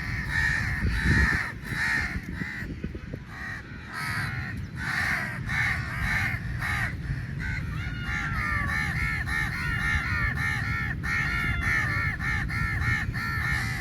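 A large flock of crows cawing over one another without a break as they squabble over meat, with a quicker run of short, evenly repeated caws in the second half.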